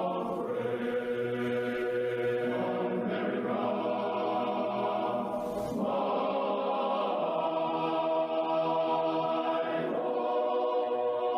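A choir singing a national anthem in long held chords.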